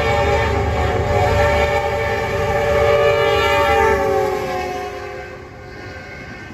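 Norfolk Southern GE AC44C6M freight locomotive's air horn blowing one long chord as the train comes on at full speed, the pitch dropping as the locomotives pass about four seconds in. The horn stops around five seconds, leaving the steady rumble of empty autorack cars rolling past.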